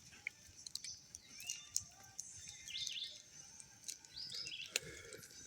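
Songbirds chirping and calling, with short up-and-down chirps that are loudest about three seconds in. A few faint sharp clicks or knocks come in between.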